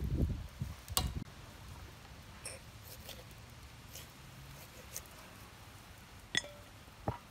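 Knife cutting a whole raw chicken on a wooden cutting board: a few sparse clicks and taps, the sharpest about six seconds in. A low rumble fills the first second.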